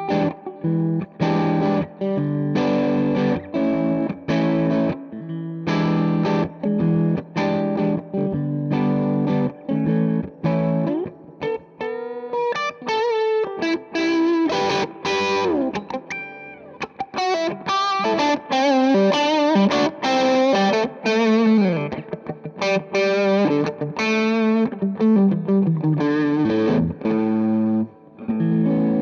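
Electric guitar, a G&L Fallout Tribute with its split humbucker blended with the neck P90, played through a JHS Angry Charlie distortion pedal on low gain: short, choppy strummed chords, then a lead line with string bends and vibrato from about halfway through.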